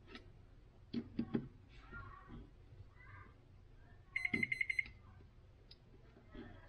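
A quick run of about eight high electronic beeps, lasting under a second, about four seconds in. Before it come a few small clicks and knocks of tools and plastic being handled at a workbench.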